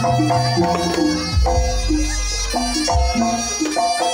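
Javanese jaranan gamelan music played live, with a reedy shawm-like melody over repeated metallophone notes. A deep gong note sounds for about a second and a half near the middle.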